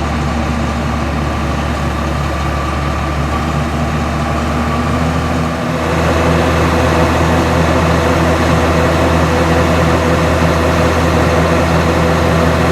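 John Deere 7720 Turbo combine's 165 hp turbocharged diesel engine running steadily under harvesting load, with the threshing machinery going. The sound steps up and grows louder about halfway through.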